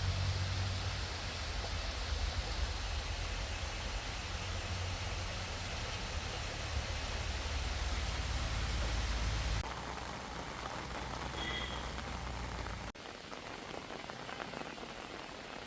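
Steady rain falling: an even hiss with a low rumble underneath. The sound changes abruptly twice, about ten and about thirteen seconds in, the low rumble dropping away each time.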